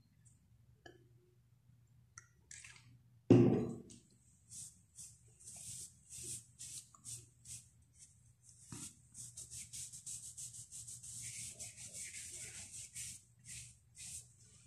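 Cotton pad rubbed over facial skin in quick, scratchy wiping strokes, several a second, close to the microphone. A single thump comes about three seconds in, before the wiping starts.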